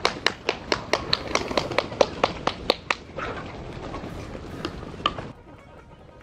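Hands clapping rapidly and evenly, about four or five claps a second, to drive a flock of chickens to run. The claps stop about three seconds in, leaving scuffling noise with a few stray claps, and it drops to a quieter background a little after five seconds.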